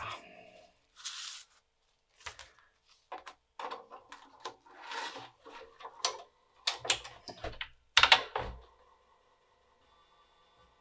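Typing on the BBC Micro's keyboard and handling a floppy disk at the drive: an uneven string of key clicks and knocks with a couple of short sliding rustles, the loudest knocks about eight seconds in. A faint steady hum follows.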